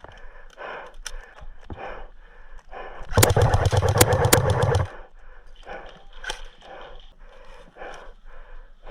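Airsoft electric gun, a stock KWA QRF Mod 1, firing one full-auto burst of about a second and a half, about a third of the way in. Scattered single pops from gunfire around the field can be heard before and after it.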